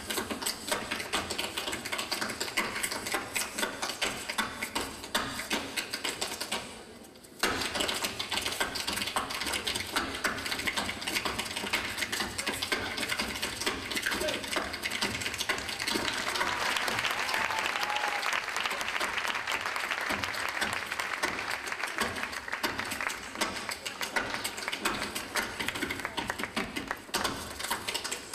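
Metal-plated tap shoes striking a wooden stage in fast, changing rhythms as two dancers trade steps, unaccompanied by the band. The taps break off for about a second near the start, and a burst of audience applause rises over them about two-thirds of the way through.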